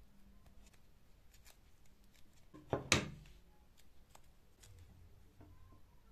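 Small handling sounds of a seal ring being pressed into the metal cup of a bike-pump part by hand: faint scattered clicks and rubbing, with one louder sharp clack just under three seconds in.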